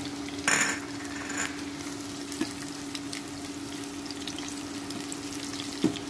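Chopped onions sizzling in hot mustard oil in a wok as a spatula stirs them, with a louder rush of sizzle about half a second in and a single knock of the spatula on the pan near the end. A steady low hum runs underneath.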